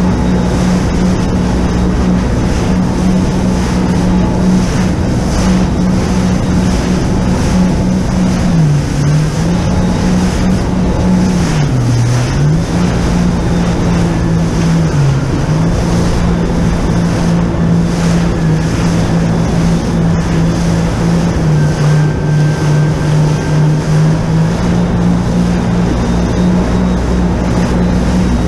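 Jet ski engine running at a steady speed over a rush of wind and water. Its pitch dips briefly three times midway, then sits a little lower for a few seconds before rising again.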